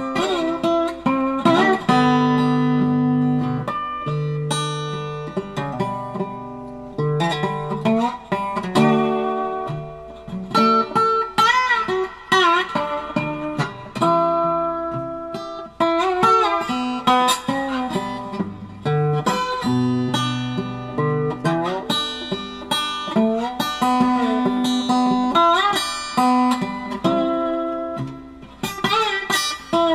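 Background music: an acoustic guitar tune of plucked notes, some of them bending in pitch.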